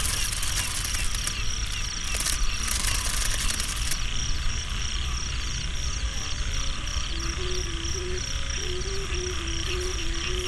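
Hummer (snu) of a large Isan kite sounding in the night sky, a wavering drone that from about six seconds in flips back and forth between two close notes, over a steady pulsing chirr of night insects and low wind rumble.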